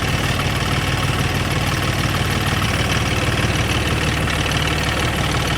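An engine running steadily with a fast, even low beat.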